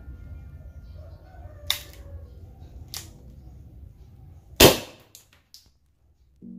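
Homemade paper pistol firing a single shot: one loud, sharp bang about two-thirds of the way in, the slide cycling back with it. Two lighter clicks come before the shot and a few faint clicks just after it.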